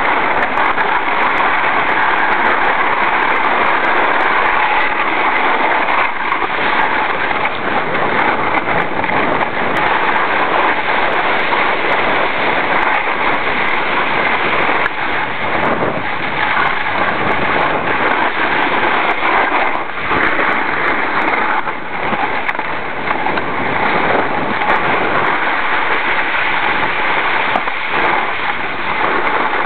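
Steady hissing scrape of a snowboard sliding over hard-packed snow, with a few brief dips in loudness.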